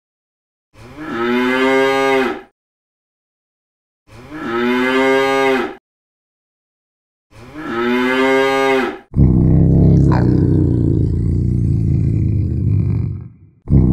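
Domestic cow mooing: three long moos, evenly spaced with silence between, each the same call repeated. About nine seconds in, a different, low, rough, noisy sound takes over and runs almost to the end.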